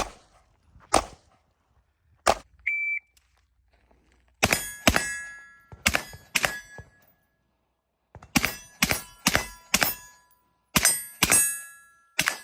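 A shot timer beeps once, then a string of gunshots, each followed by the ring of a struck steel target, comes at about two a second with a pause in the middle. A few shots with ringing steel come before the beep.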